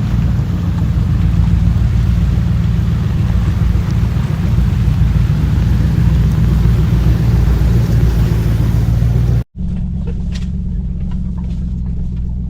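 Lexus GX470 driving on a rough off-road trail: steady low engine and drivetrain rumble under a rough hiss. The sound cuts out abruptly about nine and a half seconds in, then the rumble goes on with less hiss and a few faint clicks.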